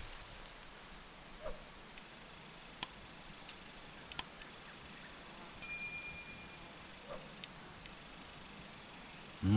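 Steady high-pitched insect chorus, with a few faint clicks and a short thin tone a little past halfway.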